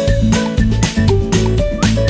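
Background music with a steady, quick beat: percussion hits with bass and melody notes.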